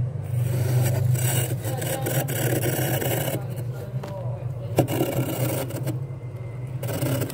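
Stainless steel glass scraping soft, flaky frost off a freezer's inner wall, in strokes with brief lulls and a sharp click about five seconds in. A steady low hum runs underneath.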